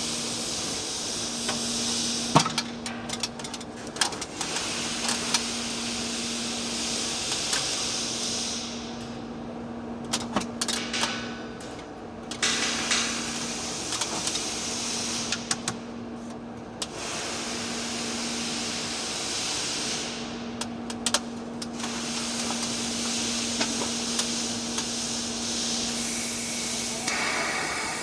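TIG welding arc on steel pipe: a steady hiss over a constant low hum, with scattered small clicks and a few short breaks in the hiss.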